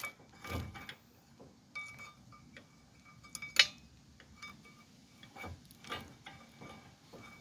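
Metal tools and brake parts clinking and tapping against each other, each contact leaving a short ringing note, with one sharp click about three and a half seconds in.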